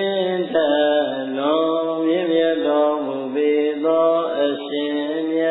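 A man's voice chanting a Buddhist devotional chant in long, held notes that glide slowly up and down, with only brief breaths between phrases.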